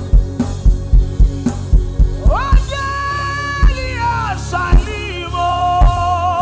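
Live gospel worship music: a drum kit keeps a steady beat, then about two seconds in a singer slides up into long held notes without words over the band.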